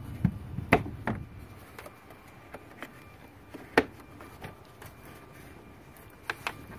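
Latch clips on a 2008 Kia Sportage's air filter housing lid being snapped shut by hand. Three sharp clicks come in the first second or so, one about four seconds in, and two close together near the end.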